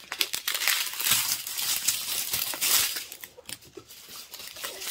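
Small plastic zip bags of square resin diamond-painting drills crinkling as they are handled and sorted, an irregular crackle that eases for a moment about three seconds in and then picks up again.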